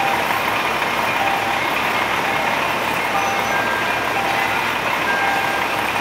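Ice cream truck's engine running steadily at idle, a loud even noise, with faint short tones here and there over it.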